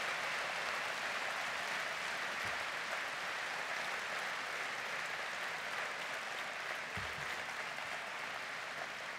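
A large audience applauding: sustained clapping from many hands that slowly eases off toward the end.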